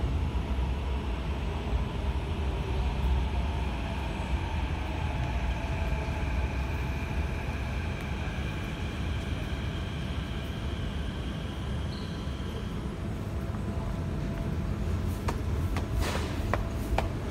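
Thomson–East Coast Line CT251 metro train pulling into an underground station behind platform screen doors: a steady low rumble with a motor whine in several tones, which fades out after about twelve seconds. A few sharp clicks follow near the end.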